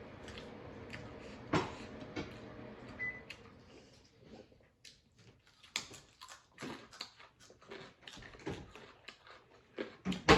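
Eating at the table: a string of short clicks and taps of utensils against plates, with chewing, growing more frequent about halfway through. A faint steady hum underneath fades out about four seconds in.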